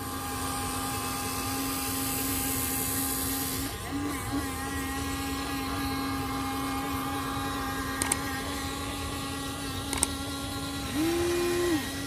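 Small electric gear motors of a HuiNa RC excavator whining steadily as the upper body slews round, the pitch rising briefly and falling again near the end. Two sharp clicks come about two seconds apart.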